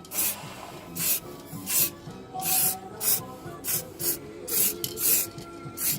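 Short rubbing strokes, about ten of them at an uneven pace, as paint is worked onto a microwave oven's casing, with radio music playing faintly underneath.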